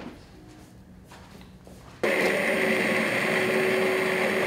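Hand-held immersion blender running in a pot of cooked split pea soup, puréeing the peas. It starts suddenly about halfway through and runs at a steady pitch.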